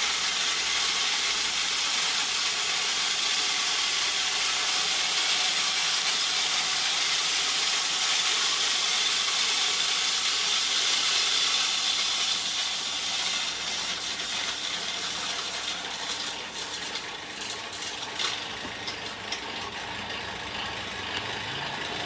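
Electric corn-cracking mill (A180, 2.2 kW motor) running under load, a steady hissing rush of dried corn kernels being cracked between the grinding plates. About twelve seconds in the sound thins and drops, with scattered clicks, as the last of the corn runs through.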